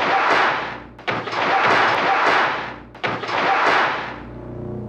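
Heavy steel sliding door slamming shut again and again, a loud metallic crash about every two seconds, each one a rushing clatter that dies away over about a second.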